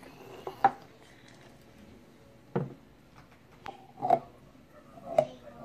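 Hard plastic cups knocked together and set down on a tabletop by a baby's hands: several separate sharp knocks, the loudest under a second in.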